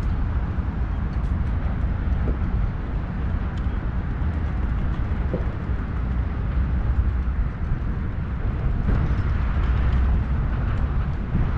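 Steady low outdoor rumble, with a few faint clicks.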